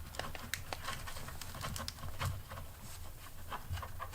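Light, scattered clicks and scuffs of hands working a small rubber grommet out of an ATV headlight mount.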